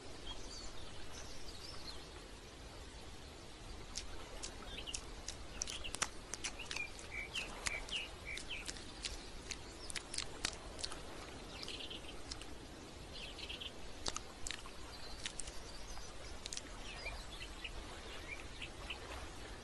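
Small birds chirping on and off over a faint outdoor background, with scattered sharp clicks that come thickest in the middle.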